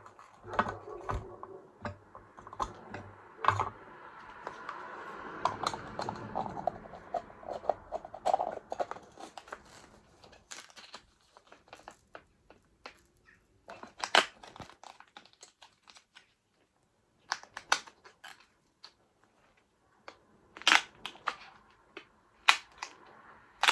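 A manual mini garlic chopper being worked again and again on a whole chili, with rapid plastic scraping and rattling for the first nine seconds or so, then scattered sharp clicks and knocks. The chili is too big for the blades, so it won't blend.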